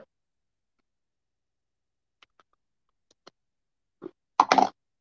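Mostly near silence, broken by a few faint small clicks as stamping supplies are handled on the table, then a brief louder click and rustle near the end as a marker is picked up.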